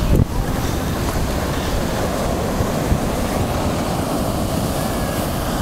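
Ocean surf breaking and washing up a sandy beach, a steady rushing noise mixed with wind buffeting the microphone, with a brief low buffet on the microphone right at the start.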